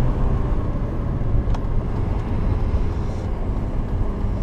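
BMW 323i E46 with its 2.5-litre straight-six running steadily while driving, mostly low engine and road rumble. There is a single light click about one and a half seconds in.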